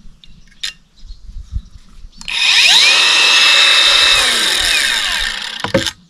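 Denzel 18-volt cordless angle grinder starting up about two seconds in, its whine rising quickly and then holding steady. Past the middle the pitch sinks as the disc slows, and the sound stops abruptly near the end.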